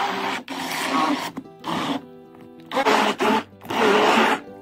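Handheld immersion blender running in repeated short bursts, churning a frothy fruit-and-juice otai mixture in a plastic tub. Background music plays between the bursts.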